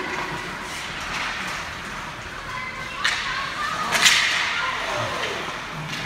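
Ice hockey play in a rink: two sharp cracks of stick and puck, one about three seconds in and a louder one a second later, ringing briefly in the hall.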